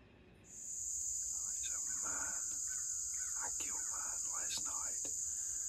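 A steady, high-pitched insect chorus comes in about half a second in and holds, with scattered short chirping calls sliding up and down over it.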